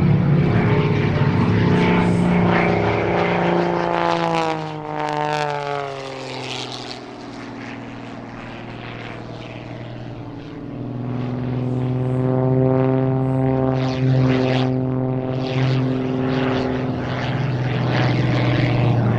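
MXS aerobatic monoplane's piston engine and propeller in flight. The note drops in pitch as it passes about five seconds in and fades for a few seconds. It then grows louder again with a steady note in the second half.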